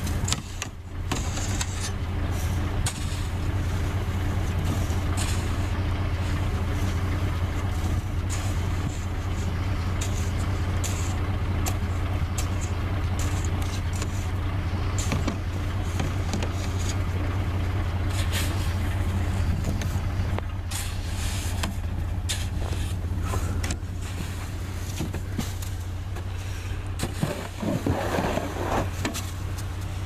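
A vehicle engine idles steadily, with irregular scrapes and thuds as a snow roof rake drags heavy wet snow across a pickup truck's roof.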